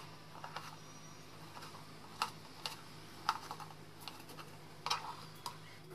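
Kitchen knife cutting a tomato on a cutting board: irregular sharp taps as the blade meets the board, about nine spread through.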